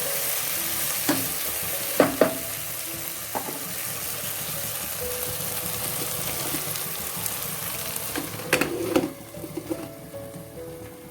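Chopped onions with tomato, ginger and garlic sizzling in oil in a pan while they sauté soft, with a few sharp clinks of a utensil. The sizzle drops away about nine seconds in.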